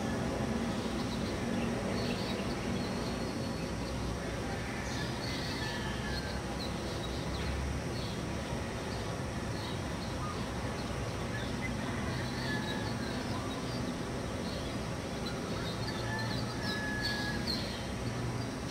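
Birds chirping in short scattered calls over a steady low rumble of background noise.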